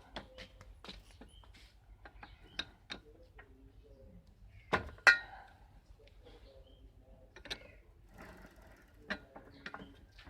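Irregular metallic clicks and knocks of hand work on a bicycle pedal being threaded onto its crank. There are two louder clanks about five seconds in.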